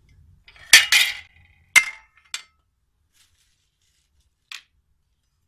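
Metal backdrop-stand poles and parts knocked together and set down on a tiled floor: two loud, ringing metallic clinks about a second in, a third close after, a smaller one, then one faint clink near the end.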